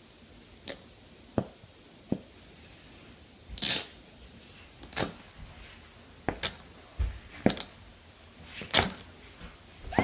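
Toys being handled and put into a cardboard box: scattered light knocks and clicks with a few short rustles.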